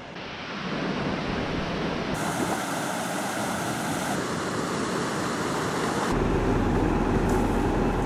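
Steady rushing noise of falling water mixed with wind on the microphone, its tone changing abruptly about every two seconds. A heavy low rumble joins in for the last two seconds.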